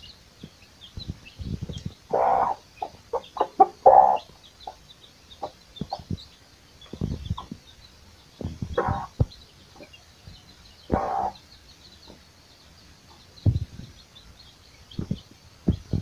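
Domestic hen clucking in short spells every few seconds, with chicks peeping high and faint throughout, and a few low thumps in between.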